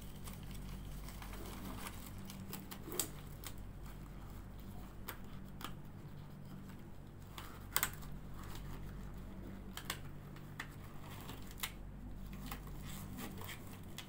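Sterile surgical gloves being pulled on and worked over the fingers: scattered short snaps and rustles of the glove and its paper wrapper, over a steady low hum.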